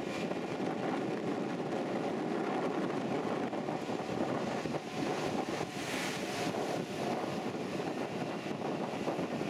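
A pirogue's outboard motor running steadily as the boat moves through rapids, with wind on the microphone and rushing water; the water hiss swells briefly about six seconds in.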